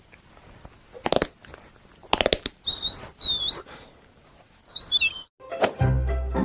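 Sound effects made with the mouth: a few sharp clicks and pops, then three short bird-like whistled chirps that slide up and down. After a brief gap, music with plucked strings and a deep bass starts near the end.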